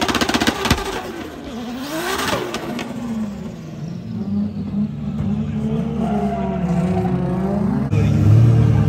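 Drift car engines revving hard, the pitch swinging up and down, with a rapid crackle of exhaust pops in the first second. From about three seconds a steadier engine note climbs slowly, and near the end the sound cuts suddenly to a louder, deeper engine rumble.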